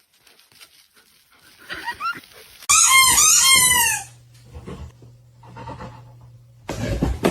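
A dog giving a fast run of high-pitched whining yelps, rising and falling in quick arcs and loudest for about a second and a half in the middle. A burst of noise comes in near the end.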